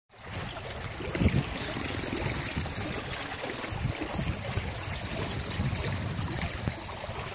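Water rushing and splashing along a small trimaran's hull and outrigger float as it sails, with wind buffeting the microphone in uneven gusts.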